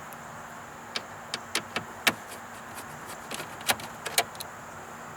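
Scattered sharp clicks and taps as a hand tool works the screws holding a plastic under-dash cover, over a steady faint background hum.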